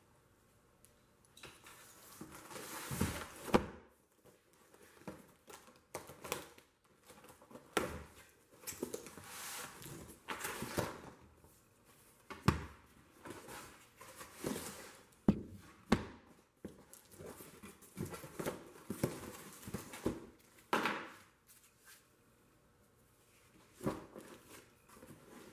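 Plastic shrink-wrap and a cardboard box being torn open and handled, crinkling and rustling in irregular bursts, with a few sharp knocks as rolls of edge banding are lifted out and set down on the workbench.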